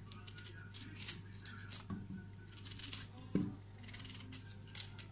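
Kitchen knife cutting through raw pumpkin chunks over a stainless steel pot: a few short, crisp cuts and clicks at irregular intervals.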